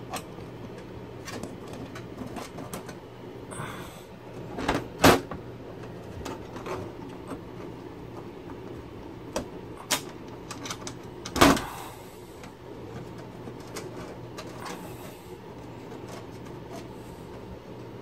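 A desktop PC case being handled and closed up: scattered clicks and knocks from its screws and side panel, with two louder knocks about five and eleven and a half seconds in, over a steady low hum.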